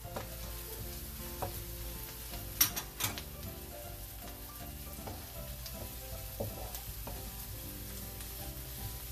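Garlic, red onion and julienned ginger sizzling in oil in a nonstick wok while a wooden spatula stirs them. Two sharp knocks sound a little under three seconds in.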